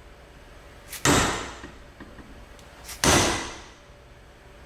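Two hard hammer blows about two seconds apart, driving a retaining clip onto a power steering shaft; each strike rings briefly and dies away.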